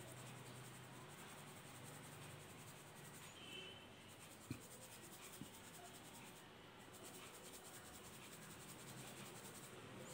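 Faint rustling hiss of crushed mothball powder being shaken through a green plastic mesh sieve onto paper, with two small ticks about halfway through.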